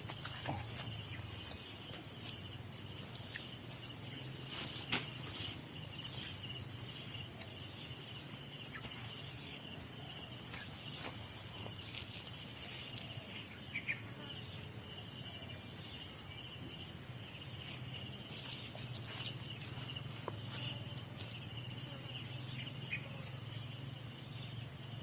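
Steady, high-pitched insect chorus droning without a break, with a few faint clicks.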